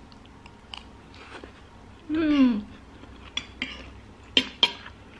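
Metal spoon and fork clinking against a plate in several sharp clicks, the two loudest close together near the end. About two seconds in, a short hum with falling pitch from the eater.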